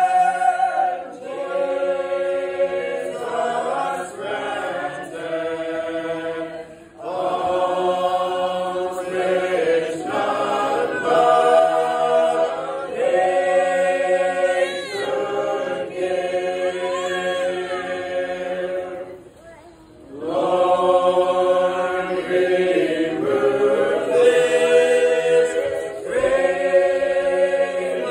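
A Sacred Harp class singing unaccompanied in full-voiced harmony, in long sustained phrases with brief breaks about seven and nineteen seconds in.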